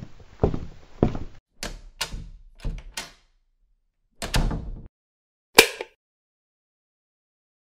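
A run of heavy knocks, seven or so over the first three seconds, then a longer thud a little past four seconds and a single sharp, loud bang about a second and a half later.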